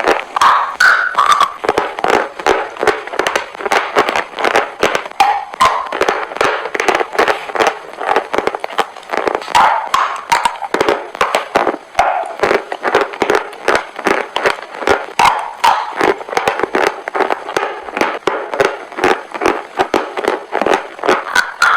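Chalk crunching: a dense, irregular run of crisp cracks and crumbles, several a second.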